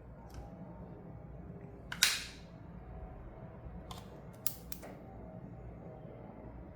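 One sharp snap about two seconds in, then three lighter clicks about two seconds later, from toy packaging or plastic playset pieces being handled during an unboxing.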